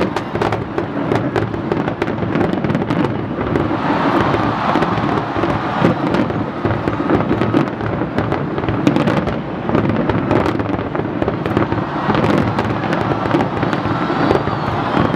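Fireworks display going off in a dense, continuous barrage of rapid overlapping bangs and crackles.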